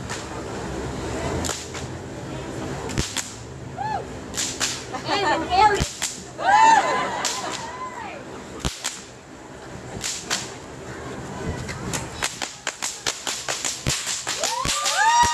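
Fire whip, its tip burning, cracking repeatedly: single sharp cracks every second or two, then a fast run of cracks over the last few seconds.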